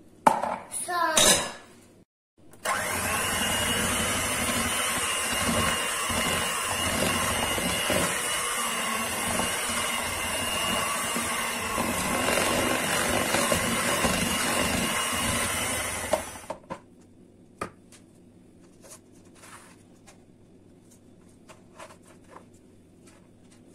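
Electric hand mixer running steadily, beating butter cream mixed with condensed milk, starting a few seconds in and switched off abruptly after about fourteen seconds. A few light taps follow.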